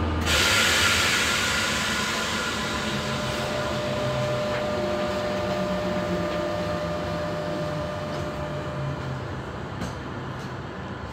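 Cabin noise inside a Z20500 double-deck electric commuter train on the move: steady running rumble with a faint electrical whine. A sudden rush of louder noise comes about half a second in, then eases gradually as the train runs on, growing quieter toward the end.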